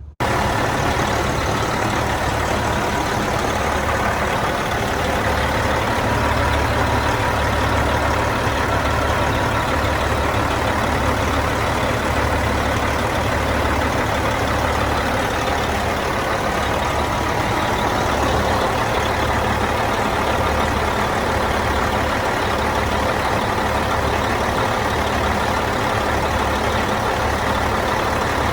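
Caterpillar C15 diesel engine of a Freightliner Classic XL truck idling steadily, with a low, uneven throb underneath.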